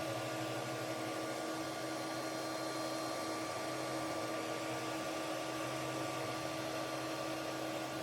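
Steady mechanical hum and hiss, like a running fan, with a few faint constant whine tones and no change throughout.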